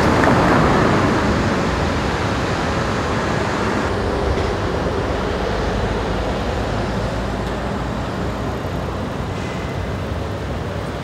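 Steady city street traffic noise, a continuous rush with no distinct events, turning duller about four seconds in.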